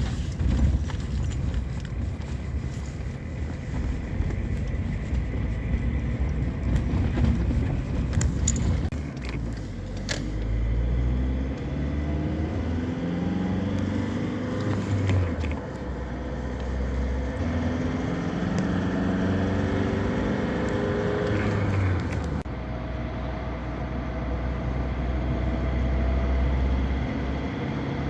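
Škoda Octavia II 1.6 TDI four-cylinder diesel pulling under acceleration, its pitch rising twice with a gear change in between, then holding steady. Sharp clicks and rattles come through in the first part. This is the rattling noise under acceleration that the owner cannot explain, suspecting injectors, transmission or axle.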